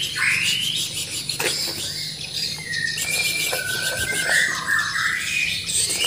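White-rumped shama (Bornean race) singing: a loud swooping phrase at the start, then a run of shorter whistled notes and rising and falling slurred glides.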